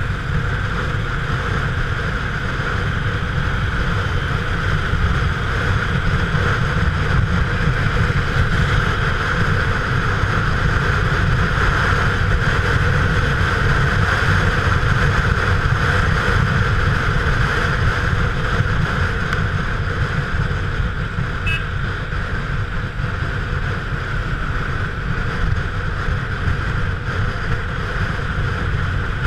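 Steady wind rush and motorcycle riding noise on an action camera carried on a moving motorcycle: wind buffeting the microphone over the engine and road noise, with no change in speed.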